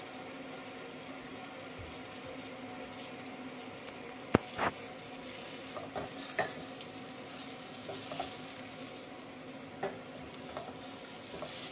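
Chopped onions frying in fat in a stainless steel saucepan, with a steady sizzle while a wooden spoon stirs them. Short knocks and scrapes run through it, and a sharp knock about four seconds in is the loudest sound.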